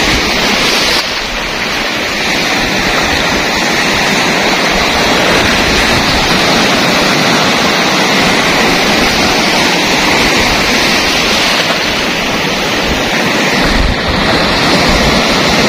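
Sea surf breaking and washing around a rocky outcrop: a loud, steady rush of waves.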